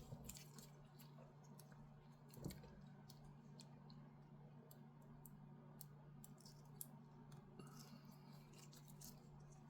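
Faint small clicks and handling of small parts as motor wire connectors are plugged into a drone's flight controller board, with one louder knock about two and a half seconds in, over a low steady hum.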